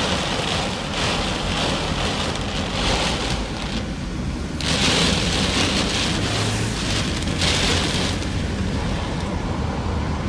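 Heavy rain and gusting wind of a tornadic thunderstorm, a steady hiss that swells and eases, loudest about halfway through.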